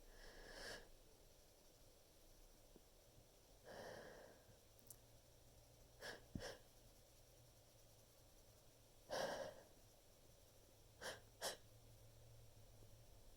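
A person's short, sharp breaths and sniffs while trying to bring on a sneeze: about seven bursts, the loudest about nine seconds in, with two quick ones near the end.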